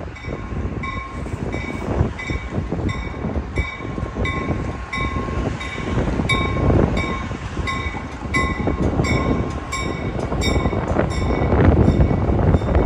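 A bell ringing in short, even strokes about twice a second, over the rumble and wheel clicks of a passing passenger train. The train grows louder toward the end, and the bell fades out about eleven seconds in.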